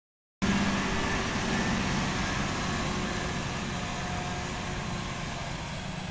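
Hitachi ZW220 wheel loader's diesel engine running as the loader drives off, cutting in abruptly about half a second in, then slowly fading as it moves away.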